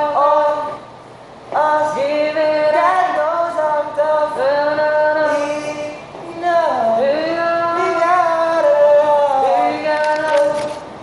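A song's wordless vocal passage: singing on long held notes that slide up or down into pitch. It breaks off briefly about a second in and again around six seconds.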